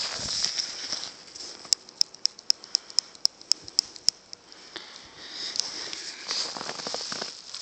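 Crunching and rustling of footsteps in snow and straw. In the middle comes a run of about a dozen sharp clicks, evenly spaced at about four a second.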